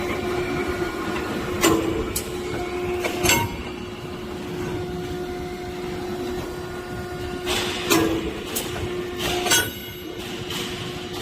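PM-80T 80-ton hydraulic punching machine at work: its pump motor hums steadily while the punch strikes steel four times, in two pairs, each a sharp metallic bang with a short ring.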